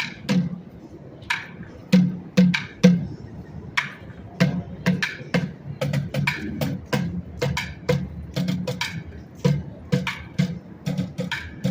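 Music with a busy percussive beat: low drum thumps and sharp clicks, a few hits a second.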